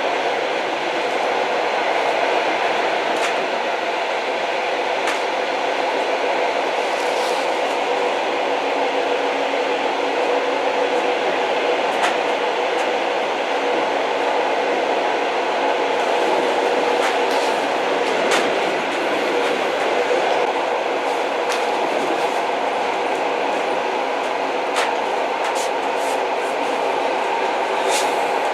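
Old train running steadily: a constant rolling rumble with a steady hum, broken by scattered, irregular sharp clicks and knocks.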